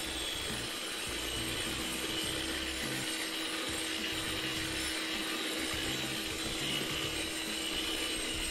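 Angle grinder under a vacuum dust shroud running steadily as it grinds cured crack filler and sand flush with the concrete slab surface, with a steady hum and a high whine.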